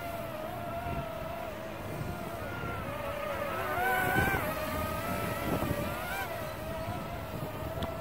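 Parrot Swing mini drone's four propellers whining in flight, the pitch wavering and rising briefly about four seconds in, over wind rumble on the microphone.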